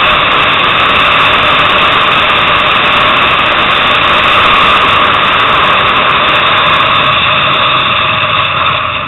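Motorcycle at speed on a race track, heard on board: steady engine noise at high revs mixed with wind rush, getting quieter near the end.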